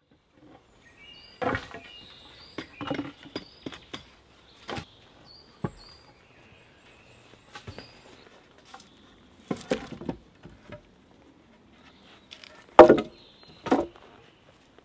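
Irregular wooden knocks and thuds as logs and stakes are handled and set into a log wall, the loudest near the end. A songbird chirps in the first few seconds.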